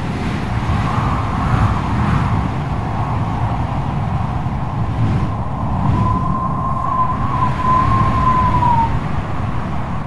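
Steady rumble of strong wind and heavy surf, with wind buffeting the microphone. About six seconds in, a thin wavering tone sounds over it for about three seconds and falls away.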